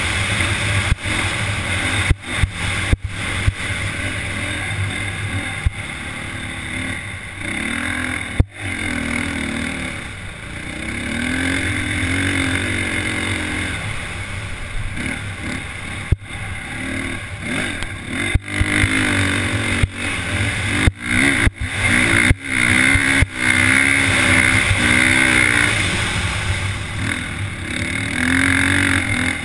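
Dirt bike engine revving up and down as the bike is ridden hard over sand, heard from a helmet-mounted camera with wind noise on the microphone. The revs climb and drop again and again, with frequent brief knocks and breaks in the sound.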